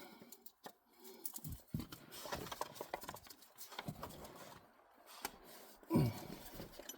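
Small clicks, taps and scraping of a strap wrench being fitted and worked around a smooth spin-on oil filter to break it loose. A brief low vocal sound comes near the end.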